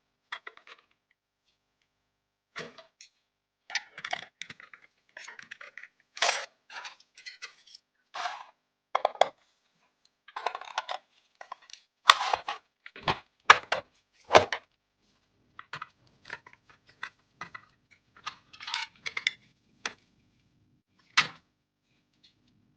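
Hands handling PC parts and hardware: a run of separate clicks, taps and light clattering of plastic and metal, some louder knocks near the middle, with a faint steady hum in the last few seconds.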